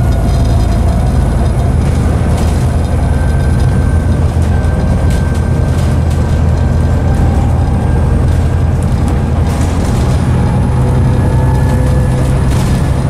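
Volvo B7TL bus's Volvo D7C six-cylinder diesel pulling under way, heard from inside the lower deck, with a howling whine from the drivetrain and its ZF 5HP502C automatic gearbox. The engine note changes right at the start and again about ten seconds in, with occasional interior rattles.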